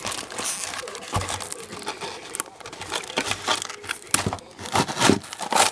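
Packaging being pulled off by hand: crinkling and tearing with dense, irregular crackles and rustles.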